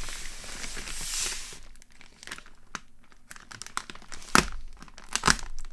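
Plastic courier mailer bag being slit and torn open with a utility knife: a long tearing rasp over the first second and a half, then crinkling of the plastic with a couple of sharp crackles near the end.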